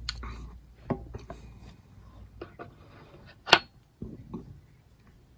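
A can of sparkling water being handled with a few light clicks and knocks. The loudest is a single sharp knock about three and a half seconds in, as the can is set down on the table.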